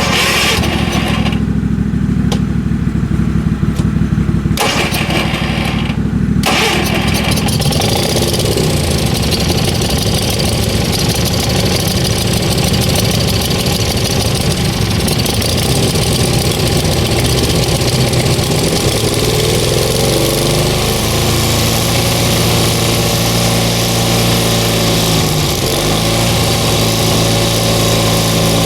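An engine running steadily. From about six seconds in it grows noisier, and near the end its speed changes, dipping briefly and picking back up.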